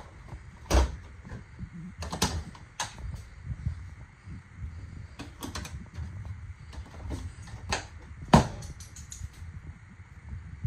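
RV refrigerator doors being unlatched and swung open: a series of sharp clicks and knocks from the plastic latch handles and doors, the loudest about eight seconds in.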